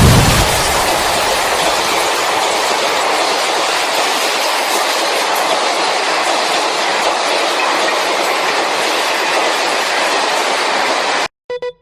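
A loud, steady rushing noise that cuts off suddenly near the end, opening with a loud low boom that fades within the first half second. A couple of short beeps follow the cut-off.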